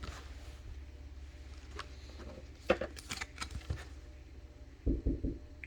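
Soft clicks and rustles of trading cards and plastic card sleeves being handled, in a short cluster a little under halfway in, followed by a few low thuds near the end.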